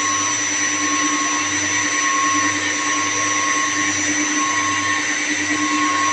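Steady, loud running-machinery noise: a constant motor hum with several fixed tones up to a high whine, from chilled water plant-room machinery running.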